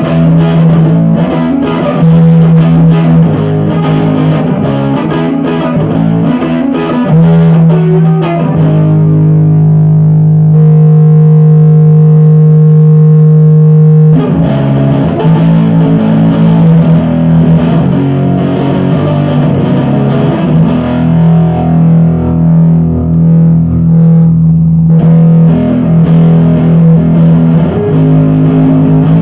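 1959 Airline Town and Country Deluxe electric guitar played through two amps in parallel, a Traynor YGM-3 valve amp and a solid-state Powersonic, with chorus and a light clean boost giving a slightly driven small-Marshall-style tone. Picked notes and chords, with one chord held ringing for several seconds near the middle.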